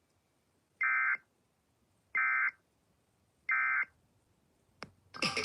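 EAS end-of-message (EOM) data signal: three short bursts of digital SAME data tones about a second apart, the code that closes an emergency alert broadcast. A click follows, and then a loud burst of noise near the end.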